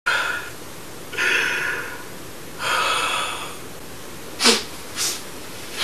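A man crying theatrically: three long, loud sobbing breaths, then two short sobs, the first a high cry that falls in pitch.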